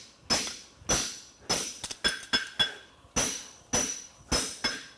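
Farrier's hand hammer striking a hot steel horseshoe on the anvil, drawing material into the toe of a French hind shoe: sharp ringing blows about every half second, with a quick run of lighter taps about two seconds in.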